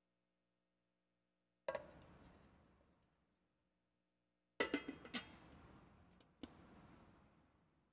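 Sharp clinks and knocks of communion ware being handled and set down on a stand, each ringing out in a large reverberant room. There is one knock about two seconds in, a quick cluster of knocks a little after halfway, and a last one near the end.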